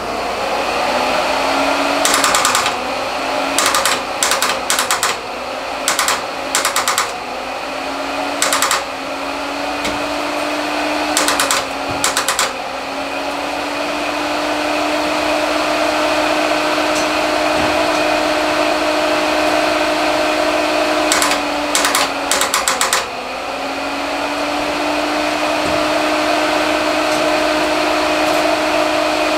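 The truck's electric radiator fans, wired to run whenever the ignition is on, hum steadily. Repeated short bursts of rapid clicking come as the key is turned, and no engine cranking is heard. The fans' pitch sags after each attempt and slowly recovers, as the starting current grounds out through the throttle cable because the engine block has no ground strap to the chassis.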